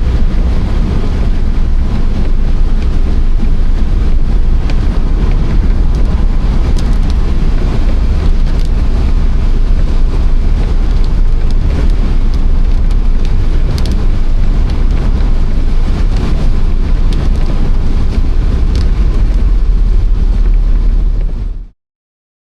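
Wind buffeting the microphone: a loud, steady rumble with a rushing hiss above it, cutting off abruptly near the end.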